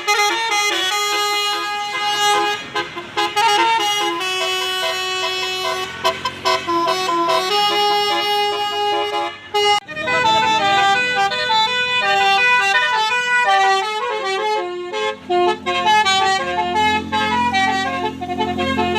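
Basuri 'telolet' multi-tone bus horns playing quick tunes of held notes, with a break and a new tune about ten seconds in. A low rumble joins under the horns in the last few seconds.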